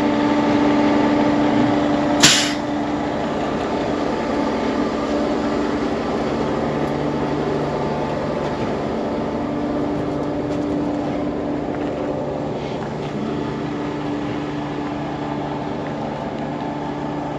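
Peterbilt 389 dump truck's diesel engine idling steadily, growing slightly fainter near the end. A single brief sharp sound about two seconds in.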